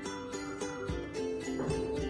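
Light background music with plucked, bell-like notes, over which a mallet knocks twice on the hard shell of a bel (wood apple), breaking it away.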